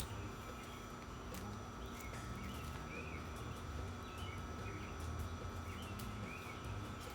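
Birds chirping faintly in short, irregularly spaced calls, over a low background rumble.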